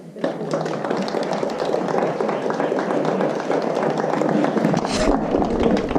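Indistinct voices of several people talking at once, with scuffing and tapping footsteps and scraping close to the microphone in a narrow rock passage.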